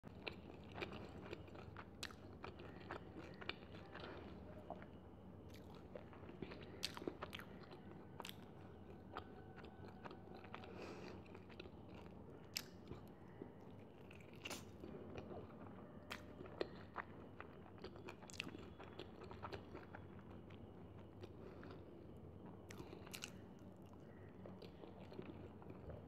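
Close-miked mouth sounds of a person chewing and biting batter-fried chicken: faint, irregular clicks and soft crunches.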